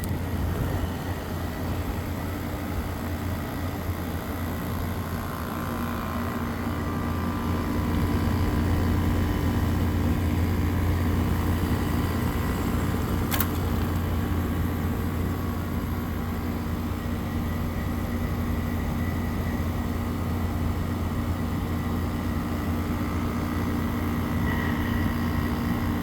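Kenmore 8,000 BTU window air conditioner running with its compressor just started: a steady low hum under the noise of the fan and moving air. A single sharp click about 13 seconds in.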